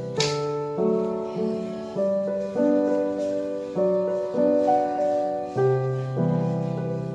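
Background piano music: slow, gentle chords played one after another, each struck note ringing on until the next.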